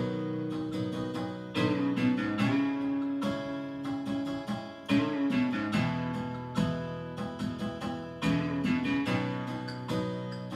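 Instrumental intro of a karaoke backing track: acoustic guitar plucked and strummed over other instruments, played over the room's speakers.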